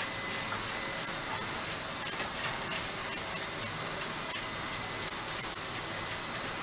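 Automated egg-handling conveyor machine running: a steady mechanical hiss with a thin high whine, and light scattered clicks as eggs roll and knock along the wire rollers.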